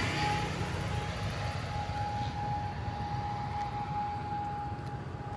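Twin-engine turboprop airliner flying low overhead on approach, its engine noise fading away as it passes, with a steady whine held throughout.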